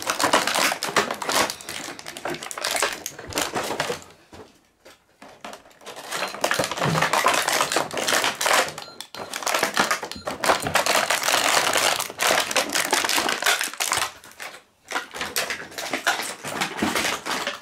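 Stiff clear plastic blister packaging crackling and clicking as it is bent and pulled to free porcelain toy tea set pieces, in long stretches of rapid crackle broken by a few short pauses.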